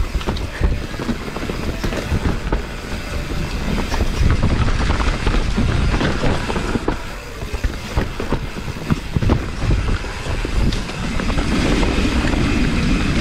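Mountain bike descending a rough, steep dirt trail: tyres rumbling over roots and rocks while the chain and frame rattle, with many sharp knocks over a steady low rumble.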